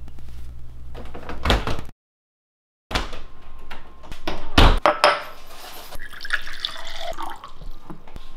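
Household handling sounds with water running at a sink, with knocks and clatter. The sound drops out completely for about a second, around two seconds in.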